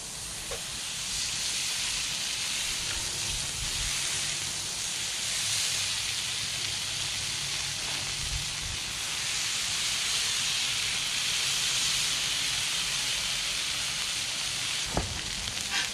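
Smashed beef patties and buttered buns sizzling steadily on a hot Blackstone flat-top griddle, the patties held under cast iron smash presses. A short knock near the end.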